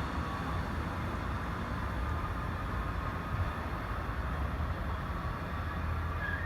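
MARC commuter train running along the tracks: a steady rumble with a faint high whine over it.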